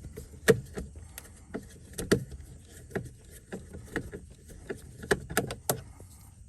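Irregular sharp clicks and knocks of a hand screwdriver and plastic door trim as screws are worked out of a car's interior door panel, the loudest about half a second and two seconds in, then three close together near the end.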